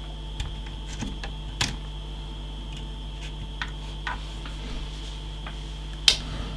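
Scattered light clicks and taps, about eight of them and irregularly spaced, from hands working a small tool inside the open metal chassis of a transceiver, over a steady faint hum. The loudest click comes near the end.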